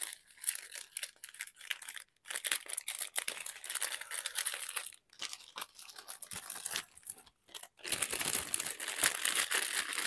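Plastic packaging crinkling as a strip of small sealed bags of diamond-painting drills is handled and slid into a clear plastic bag: quick, irregular rustles with a few short pauses, busiest near the end.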